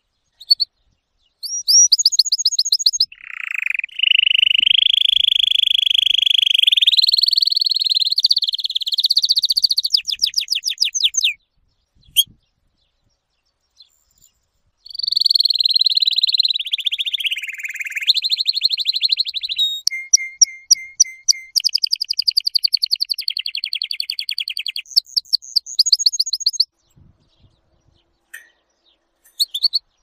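Domestic canary singing: rapid trills and long rolling, sustained phrases in two long stretches, with a pause of a few seconds between them. The song stops a few seconds before the end.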